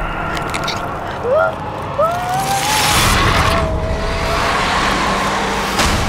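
A woman's anguished cries: short rising wails, then a longer held wail, over a rushing whoosh that swells in the middle. A sharp hit comes just before the end.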